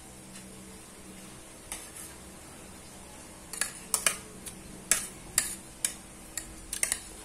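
A spoon clinking against a plate during eating: a quick, irregular series of about a dozen sharp taps starting about halfway through.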